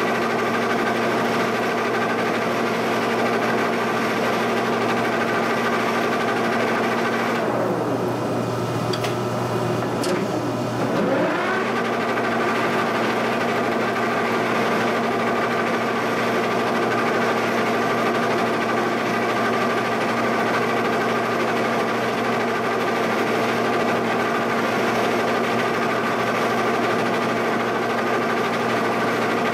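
Giddings & Lewis mill running with a steady mechanical hum of several tones. About eight seconds in the hum sinks in pitch, with a sharp click near ten seconds, then it rises back to its steady pitch about a second later.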